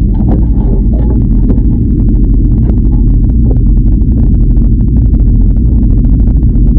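Muffled underwater sound inside a boat's live bait tank: a loud, steady low rumble of the tank's moving water and the boat's machinery. Many small irregular clicks and taps run through it as the crowded bait fish knock against the camera housing.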